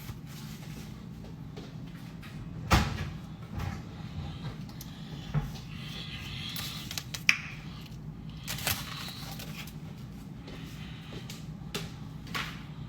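Kitchen handling sounds: a handful of scattered knocks and clacks, the loudest about three seconds in, over a low steady hum.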